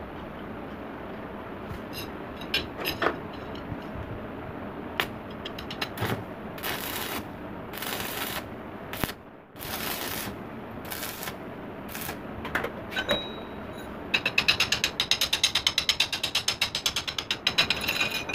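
Electric arc welding on a steel sickle blade, crackling and hissing in several short bursts of about a second each. Near the end comes a fast run of sharp metallic ticks as a hand chisel chips slag off the fresh weld.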